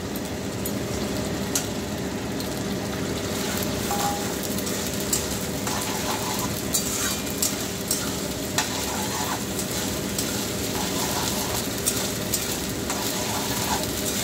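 Onions and ginger-garlic-cumin paste sizzling in hot mustard oil in a kadai, with a metal spatula scraping and clicking against the pan as it is stirred.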